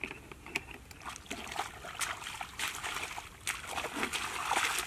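Shallow muddy water splashing and sloshing as a person wades through it, a run of irregular splashes that grows busier toward the end.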